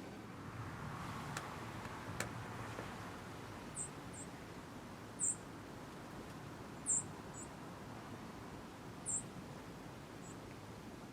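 A small animal's very high, thin chirps or squeaks: about seven short ones, a second or two apart, with two faint clicks near the start.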